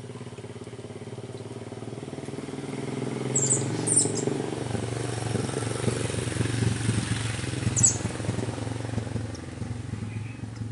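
A motor engine running steadily, growing louder over the first few seconds and then holding, with a few short high chirps over it.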